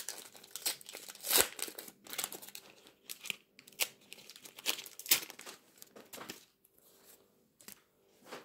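A foil trading-card pack (Adrenalyn XL football cards) being torn open and crinkled by hand, in irregular crackles and rips. It is loudest in the first half and thins out near the end as the wrapper is pulled apart.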